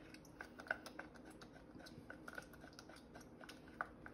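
Faint, irregular light clicks and scrapes of a silicone spatula working applesauce out of a small plastic cup, with one slightly louder click near the end.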